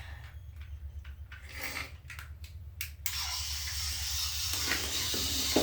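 A few light clicks and knocks of things being handled, then, about three seconds in, water suddenly starts running steadily into a bathtub.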